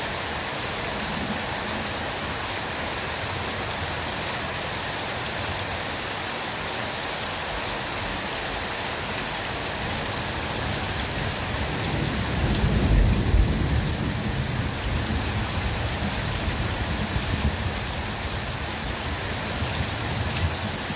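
Steady rain falling in a forest, an even hiss. About twelve seconds in, a low rumble of thunder swells, is loudest briefly, and lingers with smaller swells.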